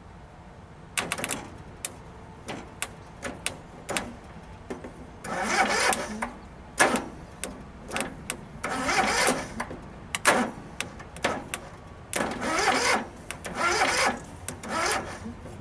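Hand work on a garden tractor: irregular sharp clicks and knocks mixed with several short rasping bursts, each about half a second to a second long.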